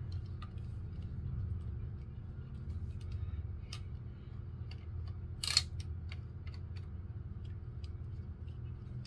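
Plastic toy-blaster tripod being handled and set up: scattered light plastic clicks, with one louder clack about five and a half seconds in, over a steady low hum.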